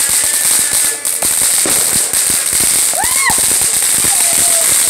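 A ground firework spraying sparks: a steady loud hiss with dense crackling pops. About three seconds in, a short pitched glide rises and falls over it.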